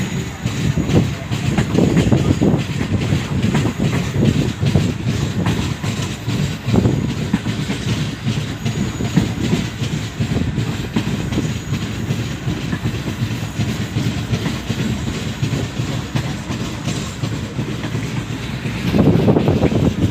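Pak Business Express passenger train running along the track: a steady low rumble with rapid clicks from the wheels, growing louder about a second before the end.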